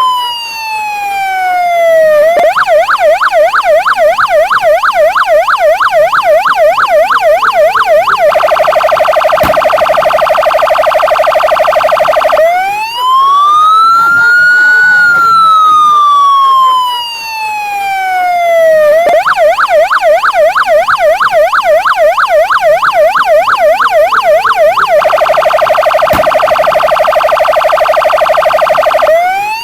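Santa Fe police patrol-car electronic siren cycling through its tones twice: a slow falling wail, then a rapid yelp of quick up-and-down sweeps, then an even faster trill. A slow wail rises and falls between the two cycles, and starts rising again near the end.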